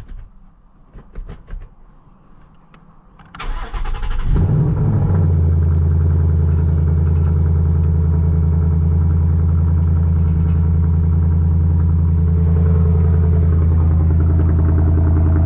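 A few light clicks and knocks, then the starter cranks briefly about three seconds in and the Ford Mustang GT's 5.0 V8 catches and settles into a steady idle through its Flowmaster exhaust.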